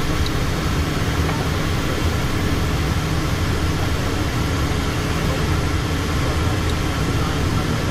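Steady in-cabin noise of a Learjet in the climb: the drone of its rear-mounted jet engines blended with the rush of airflow past the fuselage, with a few steady low hums running through it.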